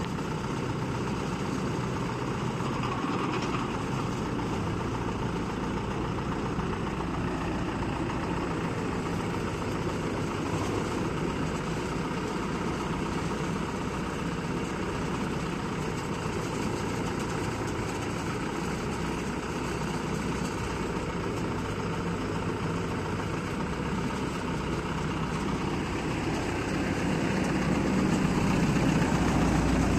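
Diesel engine of an FY300 water-well drilling rig (a 92 kW Yuchai) running steadily, growing louder about three seconds before the end.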